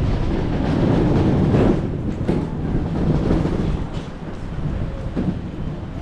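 Strong storm wind gusting and buffeting the microphone in a loud, low rumble. The gusts ease somewhat about two-thirds of the way in.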